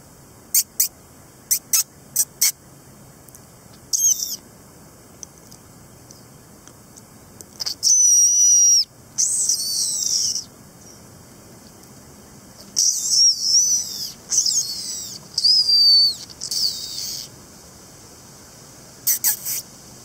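High-pitched squeaks made by a person to lure a fox closer: a few quick short squeaks at first, then longer squeaks that glide up and down in pitch in two clusters through the middle, and a short pair near the end.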